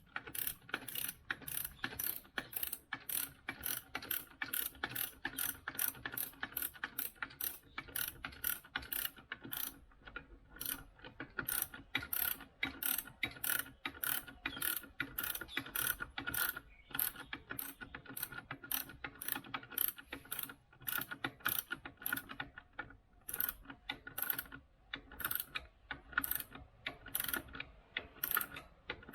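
Ratchet wrench being worked back and forth on a bolt, its pawl clicking in a quick, even series of about two to three clicks a second, with a few short pauses.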